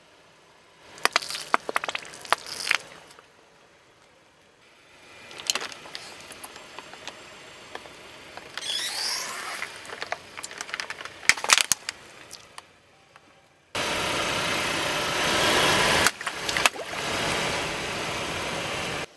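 Car tyre rolling over small objects on asphalt and crushing them, with clusters of sharp cracks and pops. Near the end comes a few seconds of loud steady rushing noise that starts and stops suddenly.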